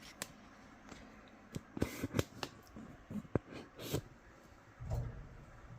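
Scattered light clicks, taps and rustles of hands handling parts inside a dryer cabinet, with a dull low thump near the end.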